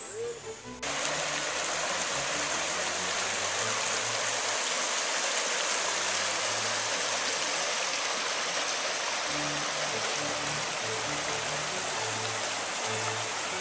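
Creek water rushing over a rocky riffle, a steady loud rush that cuts in suddenly about a second in. Soft background music plays faintly underneath.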